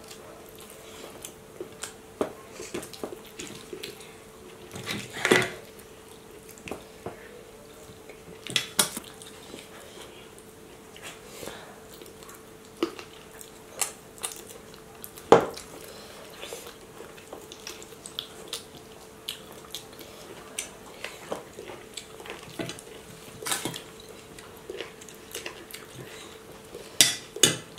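Stainless-steel plates, bowls and a serving spoon clinking, tapping and scraping while people eat by hand, with many scattered sharp taps, the loudest about five and fifteen seconds in and twice near the end. A faint steady hum runs underneath.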